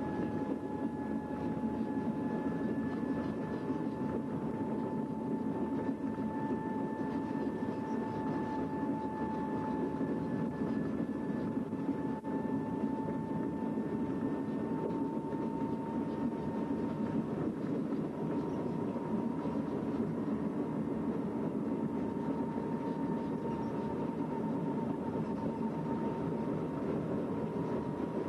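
Motorised rail drezine (track inspection trolley) running along the rails: a steady engine and running rumble with a whine that slowly creeps higher in pitch.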